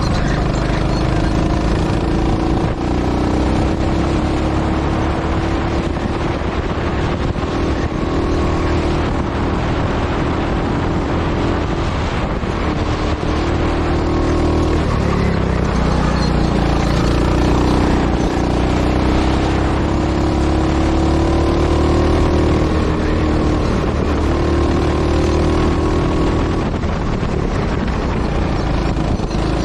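Go-kart engine running at racing speed, its pitch rising and falling again and again as the throttle is worked through corners and straights.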